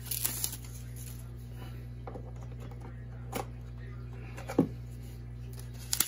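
Plastic clicks and knocks as pleated filter cartridges are handled and fitted into the black plastic housing of a Marineland Penguin 350 power filter: about five separate taps, the loudest a little past halfway, over a steady low hum.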